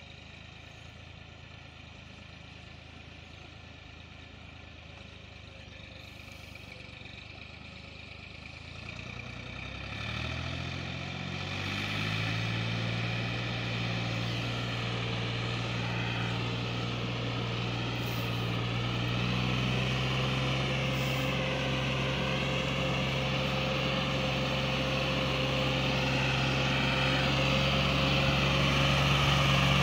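Massey Ferguson 260 tractor's diesel engine pulling a heavily loaded sugarcane trolley. It is faint at first. About ten seconds in its engine note comes up, rising a little, then holds steady and grows louder as the tractor draws near.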